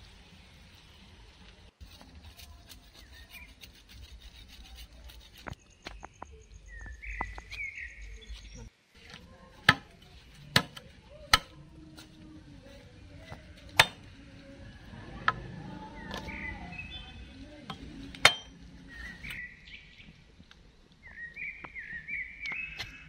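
Machete blade chopping a forked green branch against a wooden plank: about six sharp chops spaced a second or more apart, with birds chirping between them.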